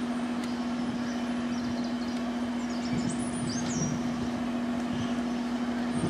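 Steady drone of heavy construction machinery running, one constant hum over a noisy bed, with a few faint high chirps about three seconds in.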